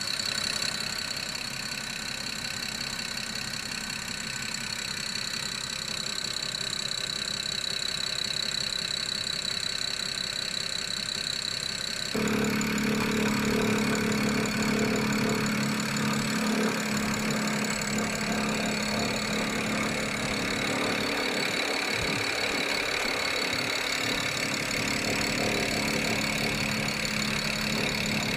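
BMW E91 325i straight-six petrol engine idling. About twelve seconds in, the revs rise slightly, as under light throttle or air-conditioning load, and the sound gets louder, bringing out a rattle whose cause the owner does not know.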